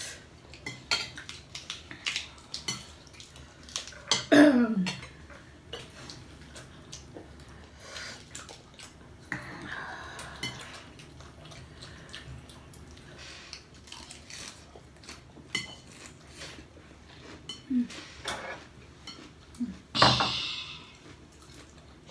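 Cutlery clinking and scraping on plates and dishes during a meal, in many short clicks. About four seconds in, a loud sound falls steeply in pitch, and another loud sound comes near the end.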